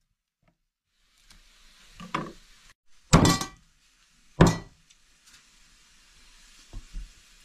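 Kitchen handling noises: a soft knock, then two loud, short clattering thuds a little over a second apart, and a few faint knocks later, over light room hiss.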